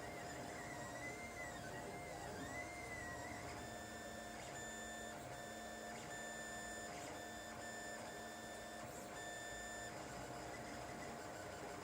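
Lulzbot TAZ 5 3D printer running: its stepper motors whine as the print head moves, the pitch wavering up and down for the first few seconds, then holding steady tones broken by short pauses, over a constant steady hum.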